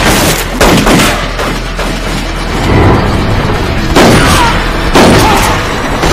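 Handgun shots in an exchange of fire: several loud shots, one about half a second in and two about a second apart near four and five seconds in, each with a reverberant tail, over dramatic music.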